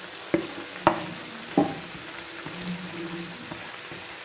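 Prawn masala sizzling in a frying pan as a wooden spatula stirs in chopped coriander, knocking against the pan three times in the first two seconds. Most of the liquid has cooked off, so the gravy is nearly dry.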